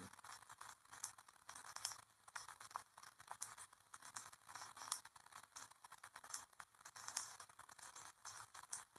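Near silence: a faint hiss with scattered small crackles and clicks.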